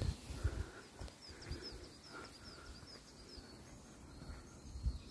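A small songbird calling in a quick series of short, high chirps, about three or four a second, over light outdoor background noise. There are a couple of low thumps, the loudest near the end.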